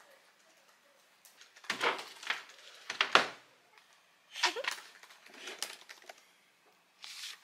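Intermittent clusters of light clicking and rustling, about five short bursts with quiet gaps between them: typing on a laptop keyboard and hands handling a paper picture book.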